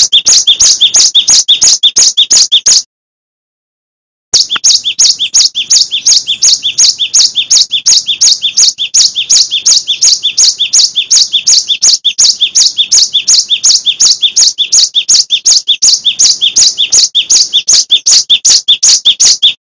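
Cinereous tit singing a fast, unbroken run of high, two-part chirps, about five a second. The run breaks off for about a second and a half near the start, then picks up again and keeps going.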